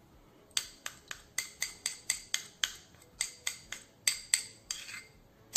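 A small plastic spoon knocks and scrapes against a ceramic bowl and the rim of a stainless steel bowl, working thick polysorbate 80 emulsifier out into the oil. The light, sharp knocks come about three or four a second.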